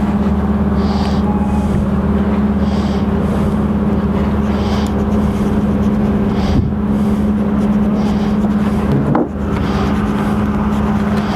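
A steady low mechanical hum, like a large engine running without a break.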